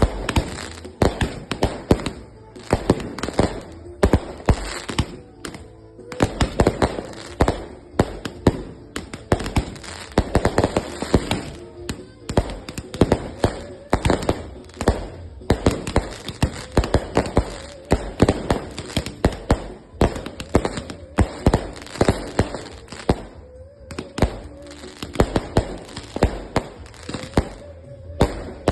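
Fireworks going off in a rapid, irregular barrage of bangs and crackles, several a second, over music playing.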